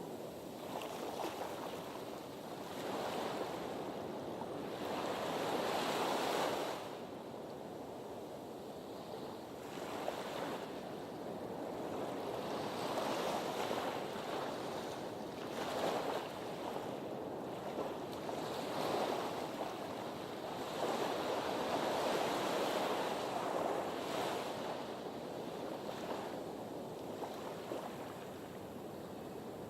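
Sea waves washing against a harbour breakwater, swelling and ebbing every few seconds.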